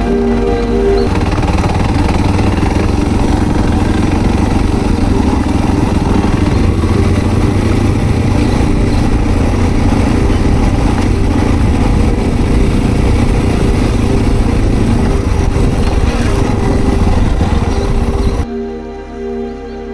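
Suzuki DR650 single-cylinder four-stroke being ridden, its engine running steadily with road and wind noise, under soft ambient music. The motorcycle sound cuts off suddenly near the end, leaving only the music.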